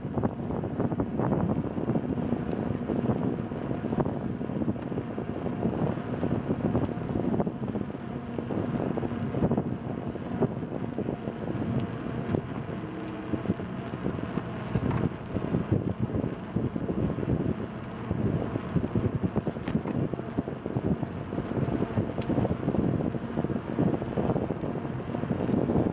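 Wind rushing over the microphone and the rolling noise of a bicycle on a paved trail, a steady rush with frequent small clicks and knocks from the moving bike.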